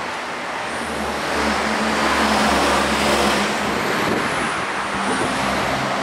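Diesel-hauled passenger train rolling along the tracks: a steady rumble and rush of wheels and engine that swells from about a second in and is loudest around two to three seconds in.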